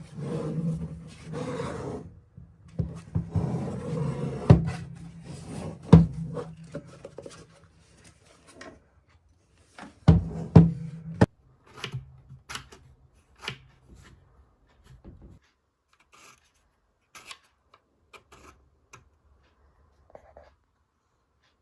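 Handling noises while unboxing: packaging rubbing and rustling, with several sharp knocks and clicks, thinning out to a few faint clicks in the second half.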